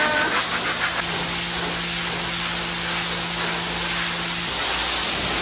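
Kärcher pressure washer spraying water onto a floor: a steady hiss of the jet, with the machine's hum heard from about a second in until shortly before the end.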